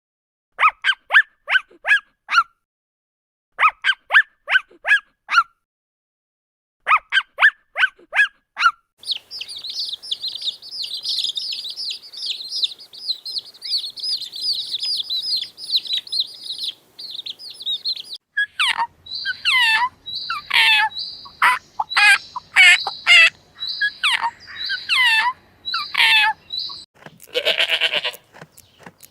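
Birds calling in several separate bursts. First come three short runs of quick, sharply falling chirps with silent gaps between them. About nine seconds in, a dense chorus of high chirping takes over, and it gives way near eighteen seconds to louder, separate calls that each sweep down in pitch.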